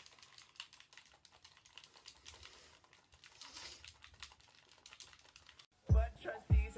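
Typing on a computer keyboard: quick, irregular key clicks. About six seconds in, loud music with a heavy bass beat cuts in abruptly.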